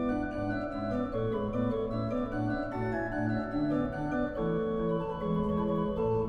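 The choir pipe organ of the Laurenskerk in Rotterdam playing a passage on its own, with sustained chords over a moving bass line.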